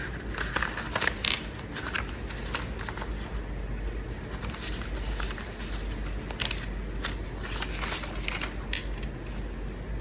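Paper forms being handled and written on: scattered short rustles and scratches, over a steady low hum.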